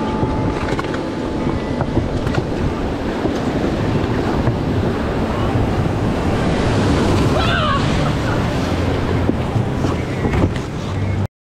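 River whitewater rushing and splashing around an inflatable raft as it runs a rapid, a loud steady wash of water that cuts off suddenly near the end.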